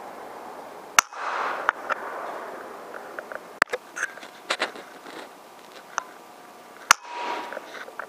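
Three sharp cracks of a PCP air rifle firing, about a second in, midway and near the end, with smaller clicks and knocks between them.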